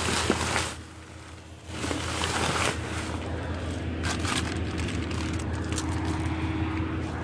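Plastic trash bags rustling and crackling as they are handled, with phone handling noise, over a steady low hum.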